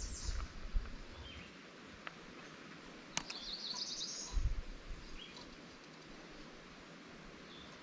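Songbirds calling, with scattered chirps and a rapid trill of repeated high notes about three seconds in. A sharp click comes just before the trill, and there are low rumbles in the first second and again around four and a half seconds.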